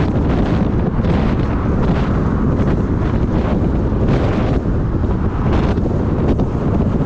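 Wind buffeting the microphone: a loud, steady low rumble that swells in gusts about once a second.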